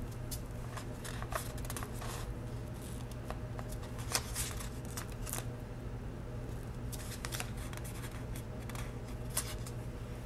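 Stickers being peeled off a paper sticker sheet and pressed onto planner pages: light paper rustles and crinkles with a few sharper ticks, over a steady low hum.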